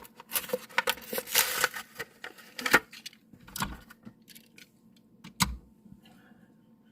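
Hot Wheels blister pack being torn open by hand: plastic and cardboard crackling and rustling with sharp clicks, busiest in the first three seconds, then a few scattered clicks, dying away near the end.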